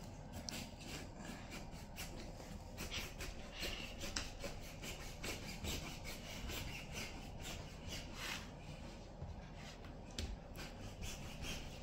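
Kitchen knife sawing slowly through the thick rind of a large watermelon, scraping in short, irregular strokes.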